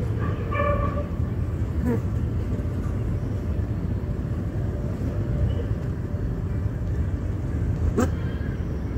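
Steady low rumble of outdoor background noise, with a brief higher-pitched sound about half a second in and a couple of faint clicks.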